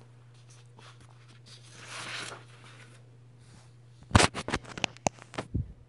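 Low steady electrical hum with a soft rustle about two seconds in, then a quick run of sharp clicks and knocks a little after four seconds in, the first the loudest: handling noise at the recording desk.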